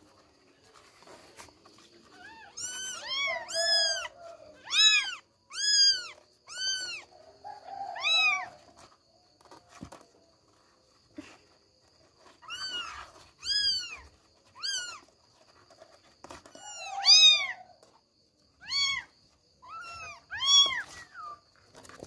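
Young kittens mewing: about twenty short, high-pitched mews, each rising then falling in pitch, in three bouts with quiet gaps between.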